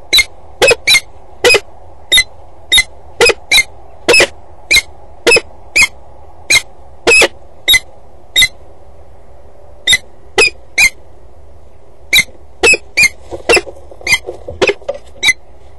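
Adult female peregrine falcon calling close to the microphone: loud, short, repeated calls at about two a second, broken by two brief pauses.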